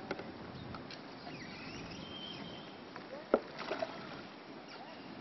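A wooden boat being poled through shallow river water with a bamboo pole: steady, soft water noise, and one sharp knock a little over three seconds in.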